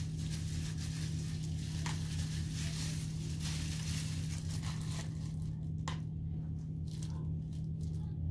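Plastic-gloved hands rubbing and crinkling through hair as dye is worked in, a continuous rustle that thins to separate strokes about halfway through, over a steady low hum.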